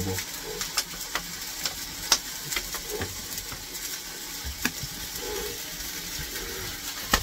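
Cooking oil sizzling on a hot fireman's shovel: a steady hiss broken by scattered small crackles.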